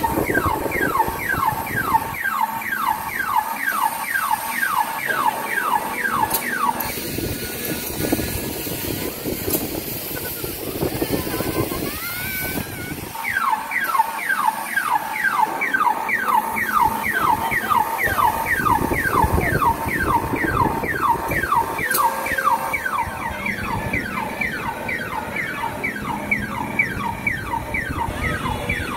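Electronic alarm-like siren tone made of rapid rising sweeps, about three a second. It breaks off for several seconds in the middle, then starts again.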